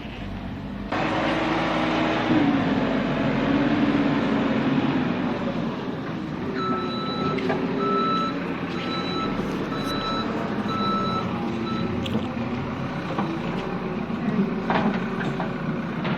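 Backhoe engine running hard under load while digging, its pitch rising and falling as it works. In the middle a reversing alarm beeps about once a second for several seconds.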